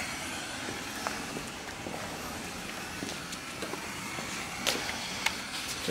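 Steady background hiss of a workshop, with a few faint, light clicks.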